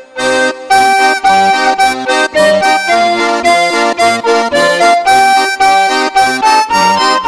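Background music: a tune of short, evenly paced notes.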